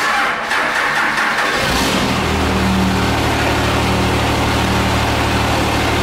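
Cummins diesel engine in a Dodge Ram cranking over for under two seconds, catching, and settling into a steady idle.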